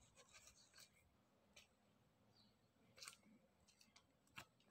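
Near silence, with a few faint short scrapes and clicks of a kitchen knife cutting through ash gourd flesh, about three seconds in and again near the end.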